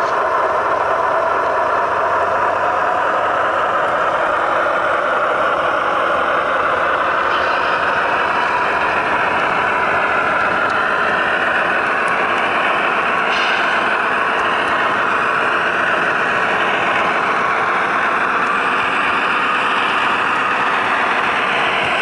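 Onboard sound of HO scale Broadway Limited Imports GE AC6000CW model locomotives with Paragon 2 sound: the recorded sixteen-cylinder turbo diesel running steadily, played through the models' small speakers.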